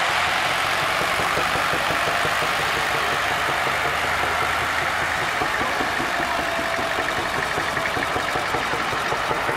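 Vintage tractor engines running with a steady, even chug as the tractors drive over soft field soil.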